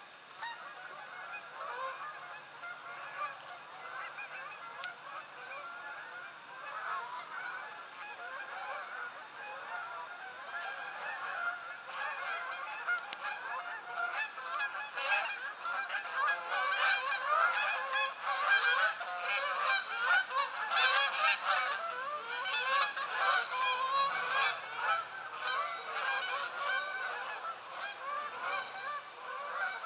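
A large flock of geese honking as it flies overhead, with many calls overlapping. The honking grows louder and denser about halfway through.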